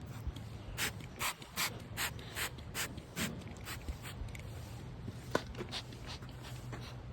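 Trigger spray bottle of fly spray being squirted onto a horse, about seven quick hissing squirts at two or three a second, then a sharp click a little after five seconds.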